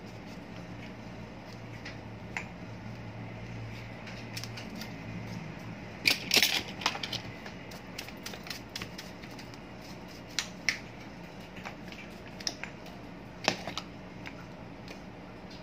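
Hard plastic electric-fan parts clicking and knocking as they are handled and fitted: scattered sharp clicks, with a short burst of louder clatter about six seconds in and single louder knocks later.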